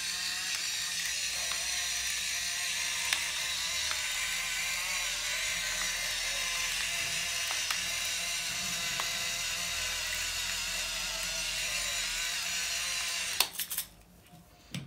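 Electric pepper mill whirring steadily as it grinds black pepper, with a few faint clicks; it stops near the end.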